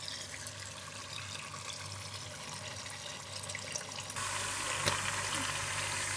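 Minced-meat and vegetable ragù sizzling in a pot on a gas burner, a steady crackling hiss that gets louder about four seconds in.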